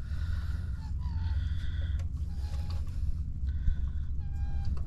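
A bird calling repeatedly in short, clear notes every second or so, over a steady low hum.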